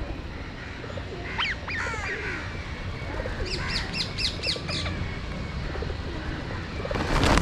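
Outdoor birds calling over a feeding flock of feral pigeons: a couple of curved calls, then a run of about six quick shrill calls. Near the end comes a loud burst of pigeon wings flapping as birds take off.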